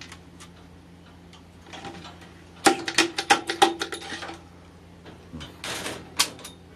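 A quick run of clinks and clatters from hard objects being handled, with a brief metallic ringing under them. A short rustle follows near the end.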